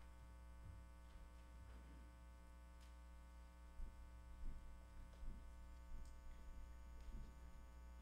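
Near silence: a steady electrical hum on the sound system, with a few soft, low thumps in the second half.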